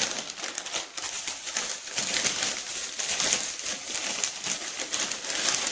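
Plastic snack bag of Flamin' Hot Cheetos crinkling and rustling as the chips are shaken out into another plastic bag. It is a dense, crackly rustle made of many small ticks that goes on without a break.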